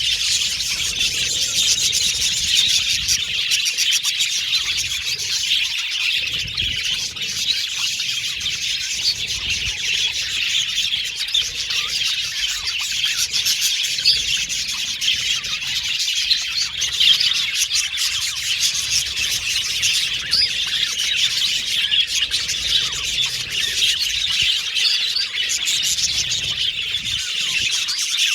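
Many budgerigars chirping and warbling at once: a dense, unbroken chatter of high calls.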